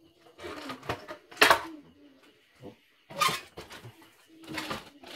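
Plastic housing cover of a YOKO embroidery machine being handled, giving a handful of sharp clattering knocks, the loudest about a second and a half in.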